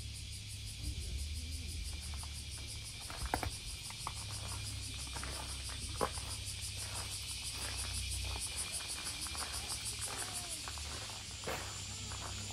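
Cicadas buzzing in a steady, fast-pulsing chorus, with a low hum underneath and a few sharp clicks, the loudest about three and six seconds in.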